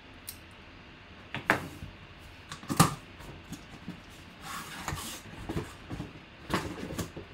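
Cardboard shipping box being opened by hand: flaps pulled back and cardboard rustling and knocking, with a few sharp clicks and taps, the loudest about three seconds in.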